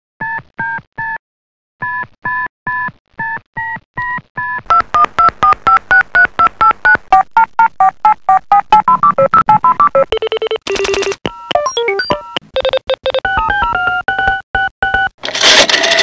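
Synthesized phone sound effects in sequence. It opens with short two-tone keypad beeps like dialing tones: three, a pause, then six more. A fast run of short beeps follows, about six a second, stepping up and down in pitch like a ringtone melody. Then come lower buzzy alert tones, more stepped beeps, and a loud burst of noise near the end.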